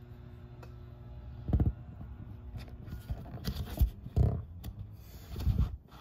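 Fingers pressing and rubbing MadMattr modeling dough into a plastic burger-patty mold, scraping, with several dull knocks as the mold is pushed against the table.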